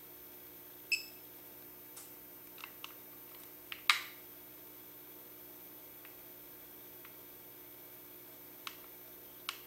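Sparse small clicks and taps from handling a handheld LCD telemetry display board, the loudest about four seconds in, one about a second in with a brief ringing tone. A faint steady hum runs underneath.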